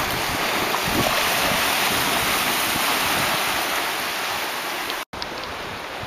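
Steady rushing of wind and surf along a rocky shore, with no penguin calls. The sound cuts out for an instant about five seconds in.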